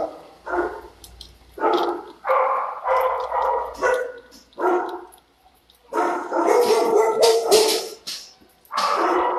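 Shelter dogs barking in their kennels, in a string of short barks with a longer, louder stretch of overlapping barking about six to eight seconds in.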